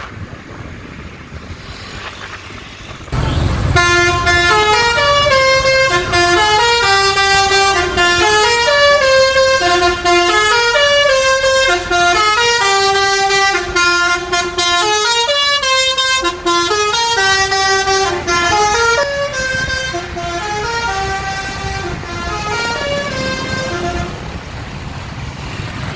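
A bus's basuri 'telolet' musical horn plays a quick melody of short stepping horn notes. It starts about four seconds in, after a brief low rumble, runs for some twenty seconds and gets a little quieter near the end.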